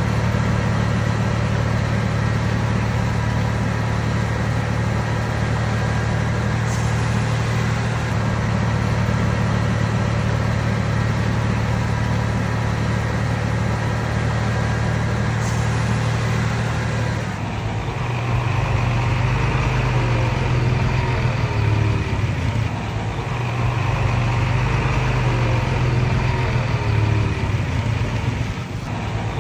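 Bulldozer's diesel engine running steadily, with its note shifting and wavering a little past halfway.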